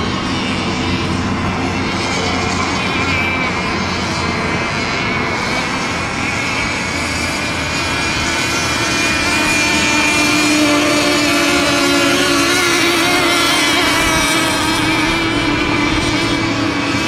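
Several racing RC boats' small high-revving engines running together, a steady buzzing whine at more than one pitch that grows louder about halfway through and eases a little near the end.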